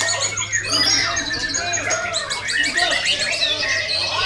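Many caged songbirds singing at once, a dense overlapping mix of whistles, chirps and rapid trills, over a steady low hum.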